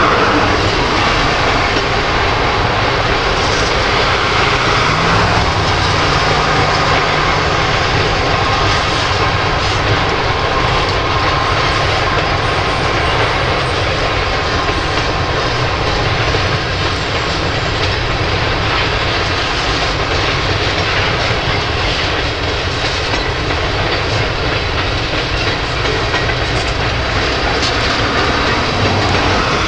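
Slow-moving freight train of covered hoppers and tank cars rolling past on the rails, a steady continuous rolling noise of wheels on track.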